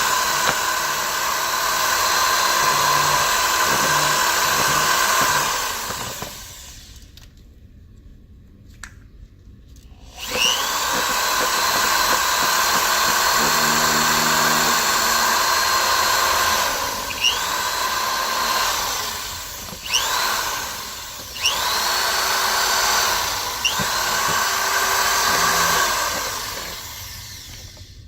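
Electric drill spinning a paddle mixer through a tube of two-part polyurea joint filler, with a steady motor whine. It stops for a few seconds about a quarter of the way in, then restarts, briefly letting off and whining back up to speed four times before winding down near the end.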